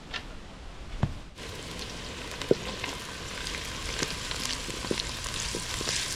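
Food frying and sizzling in a pot over a fire, a steady hiss that grows fuller after about a second, with a few short knocks, as of a spoon stirring against the pot.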